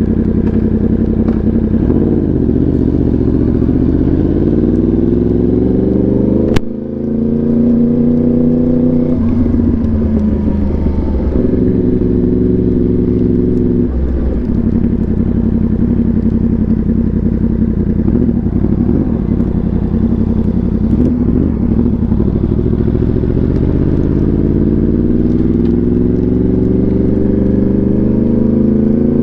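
Yamaha R1's inline-four engine running through an SC Project exhaust while riding. The engine pitch climbs under acceleration, with a sharp crack and a brief dip about six and a half seconds in. It then holds mostly steady and climbs again near the end.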